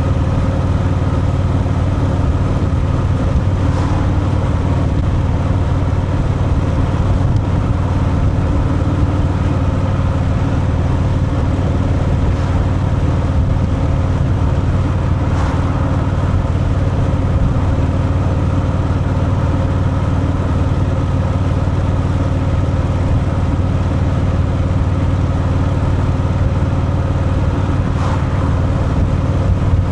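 Harley-Davidson Fat Boy's V-twin engine running steadily through its stock exhaust while the motorcycle is ridden at an even speed.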